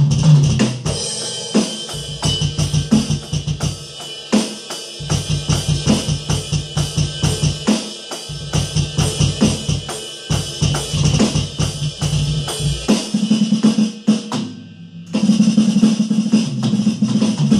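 Roland V-Drums electronic drum kit played in a fast, steady beat with kick, snare and cymbals, over music with a bass line. Everything drops out for a moment a little over three-quarters of the way through, then comes back in.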